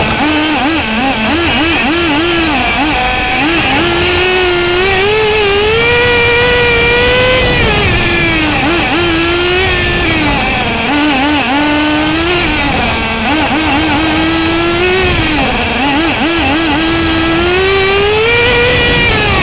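Nitro engine of a radio-controlled car heard from a camera mounted on the car, revving hard and lifting again and again as it laps, its pitch climbing on the straights and dropping for the corners, with quick stuttering dips between. A thin steady high whine runs under it.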